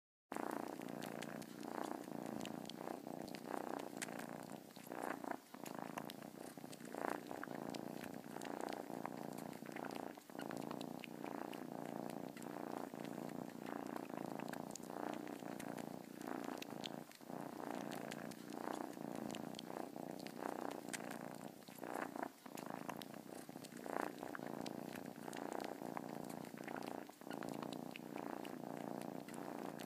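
Grey tabby cat purring steadily while its head is stroked, a sign of contentment, with brief dips every few seconds.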